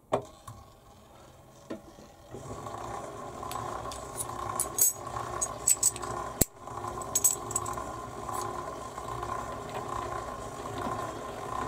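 Milling machine motor starting about two seconds in and running with a steady hum, with small metal clinks and rattles of tooling and one sharp click midway.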